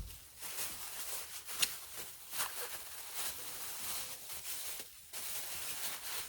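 Rustling and rubbing handling noises from hands at work on a kitchen counter, with a sharp click about one and a half seconds in and another about a second later.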